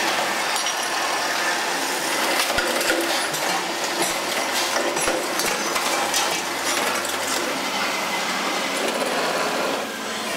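Metalworking machinery in a small workshop as steel parts are ground and pressed: a steady, harsh machine noise with many sharp metallic clicks and a few low knocks.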